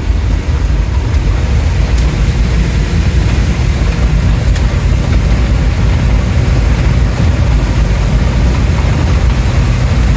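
Safari 4x4's engine and road noise as a loud, steady low rumble inside the cabin, driving through floodwater, with water spray hissing against the body and windscreen.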